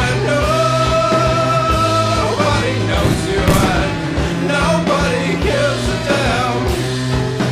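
Rock music with a singing voice over a steady bass and beat.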